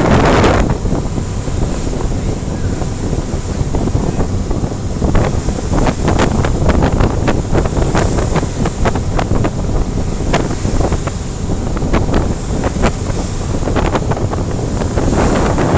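Boat crossing rough, high-wave seas: wind buffets the microphone over a steady low rumble, with a run of sharp knocks and clicks through the middle.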